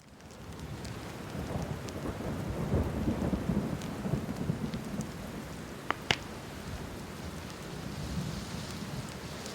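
Rolling thunder over steady rain, swelling over the first two seconds and rumbling loudest a few seconds in before easing. Two sharp crackles come close together about six seconds in.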